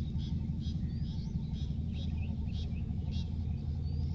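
A steady low rumble, like a motor running, with short high chirps repeating about twice a second over it.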